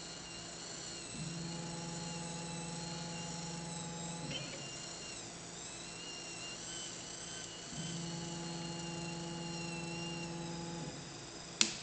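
Syringe-pump clay 3D printer's stepper motors humming at a steady pitch in two runs of about three seconds each, with a pause between, as the paste is extruded. A sharp click near the end.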